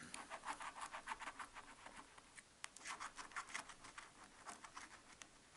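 FDJ Cash scratch-off lottery ticket being scratched off, faint short scraping strokes in quick succession, about four or five a second, thinning out after about two seconds.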